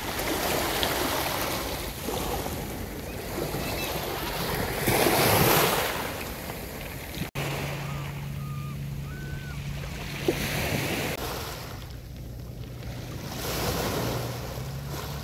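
Small waves breaking and washing up over a shingle beach of rounded pebbles, swelling and falling, with the loudest surge about five seconds in. A steady low hum runs under the surf through much of the second half.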